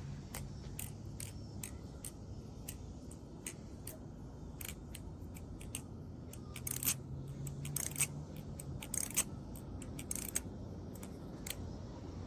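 Butterfly knife (balisong) being flipped, its handles and blade clicking and clacking against each other and at the pivots as it opens and closes, in irregular clicks a few a second.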